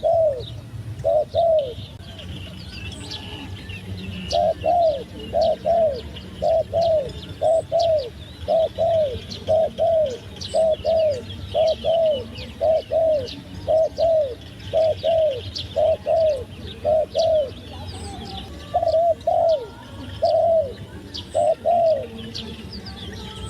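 Turtledove cooing in a long run of short paired coos, about one pair a second, pausing about two seconds in and slowing near the end. Small birds chirp faintly behind it.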